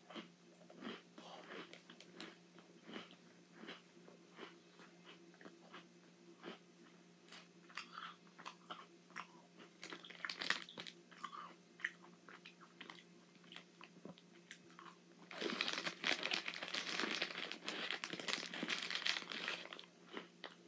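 Oreo cookies being crunched and chewed close to the microphone, a steady run of short crisp bites and chews. About three-quarters of the way in, the plastic Oreo package crinkles densely for about five seconds.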